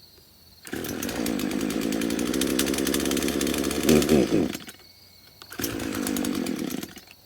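Craftsman two-stroke chainsaw engine catching and running for about four seconds, revving up near the end and then dying. A second, shorter run follows about a second later and also dies out. The long-stored saw is struggling to keep running.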